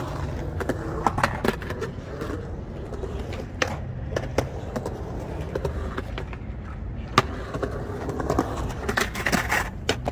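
Skateboard wheels rolling over a concrete bowl, a steady low rumble broken by sharp clacks of the board; the loudest clack comes about seven seconds in.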